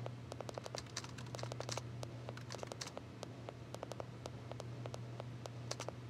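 Typing on a compact low-profile computer keyboard: quick runs of light key clicks, several a second, over a steady low hum.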